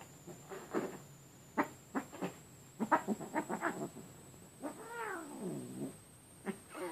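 Cats crying while wrestling: a run of short sharp cries and scuffling, then one drawn-out yowl of about a second, falling in pitch, past the middle.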